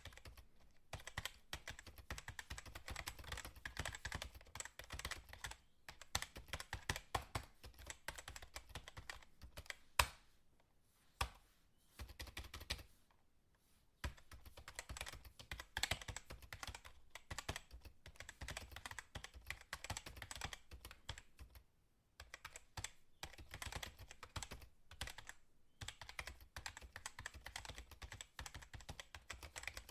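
Computer keyboard typed on rapidly: dense runs of key clicks, with short pauses about ten and thirteen seconds in and one louder key strike just before the first pause.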